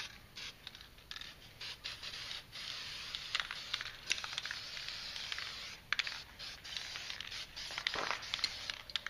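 Aerosol spray paint can hissing in short bursts and longer sprays of green paint, with little ticks between them.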